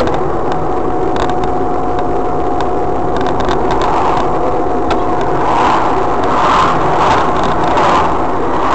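Car driving on the road, a steady rush of engine and tyre noise with scattered clicks and a thin steady whine through most of it.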